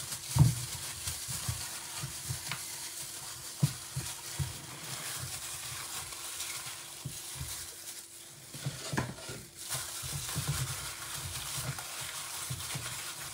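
Apples being rubbed and washed by hand in a plastic bowl of salted water: water sloshing and splashing, with occasional knocks as the fruit bumps the bowl. A faint steady hum runs underneath.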